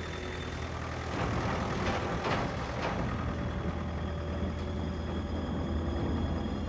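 Military vehicle engine running with a steady low rumble, with a few faint clicks between about one and three seconds in.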